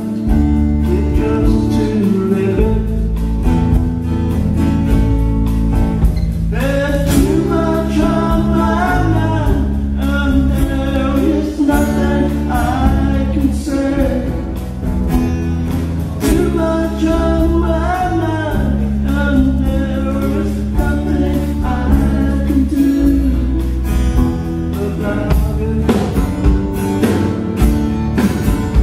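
Live band performing a song: a male lead voice singing over strummed acoustic guitar, with electric bass and drums underneath.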